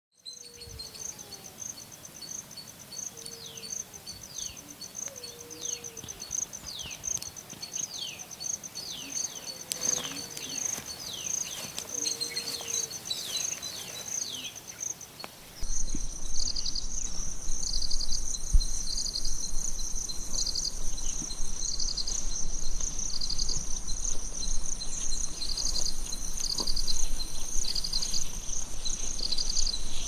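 Outdoor nature ambience: a steady high insect chorus with birds calling, including many quick falling whistles and a few low calls. About halfway it cuts to a louder insect chorus of rhythmic pulsed trills over a low rumble.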